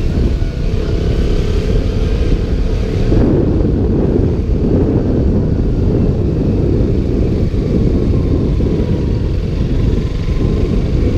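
Wind buffeting a GoPro's stock microphone in its waterproof case on a moving KTM Duke motorcycle, with the bike's engine running underneath. The wind rush grows heavier about three seconds in.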